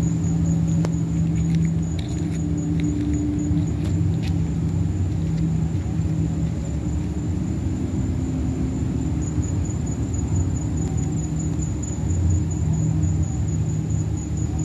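Steady low rumble with a hum in it, and a constant high, pulsing tone above it. A few faint ticks come in the first few seconds.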